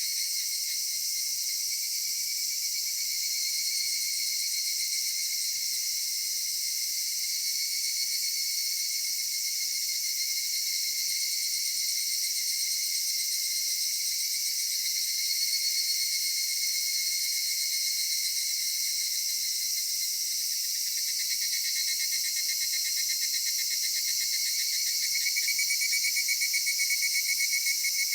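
Cicadas calling in a steady, dense chorus of several high-pitched layers. A pulsing call grows slightly louder near the end.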